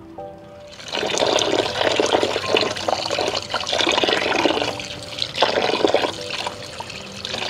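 Running water splashing and gurgling as squid are rinsed by hand in a basin; it starts about a second in and carries on steadily.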